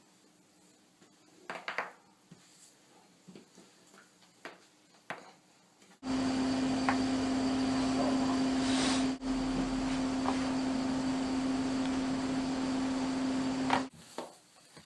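A few faint, short clicks, then a loud steady hum with a strong low drone that starts suddenly about six seconds in and cuts off abruptly near the end.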